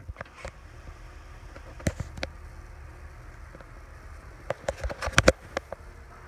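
Scattered sharp clicks and knocks from a plastic snake rack tub being handled, with a quick cluster of them about four to five seconds in.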